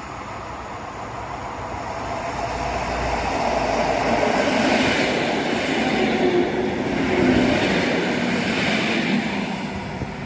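Polregio regional passenger train passing close by at speed. The rumble and rattle of its wheels on the rails grows over the first few seconds, is loudest from about four to nine seconds in, then falls off as the train moves away.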